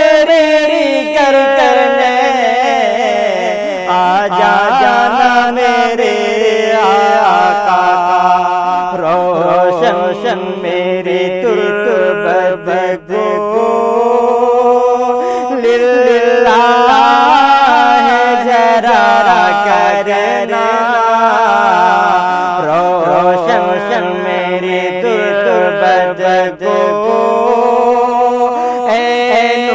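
A man's voice singing unaccompanied in the style of a devotional naat, holding long wavering notes with no clear words, with brief breaths between phrases.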